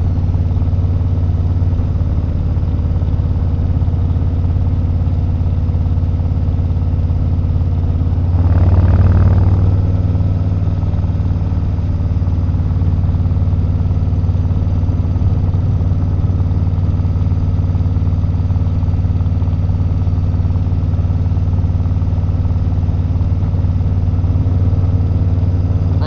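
Harley-Davidson Milwaukee-Eight 117 V-twin running through TAB Performance slip-on mufflers while riding at a steady cruise, with a short rise in engine level about eight and a half to ten seconds in.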